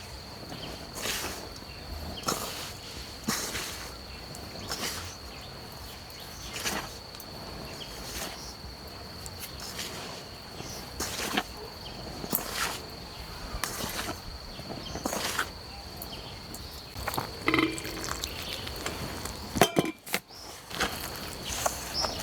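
A steady high-pitched insect trill runs throughout, with short soft knocks about every second or so over it and a few sharper ones near the end.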